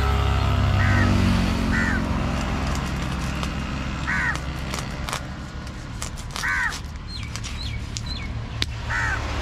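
Crows cawing: five single caws, a couple of seconds apart. Sharp clicks and scrapes of a knife scaling a fish on a wooden block fall in the second half.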